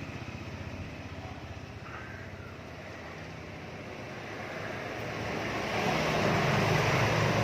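A motor vehicle engine running, fading over the first few seconds, then growing louder from about five seconds in.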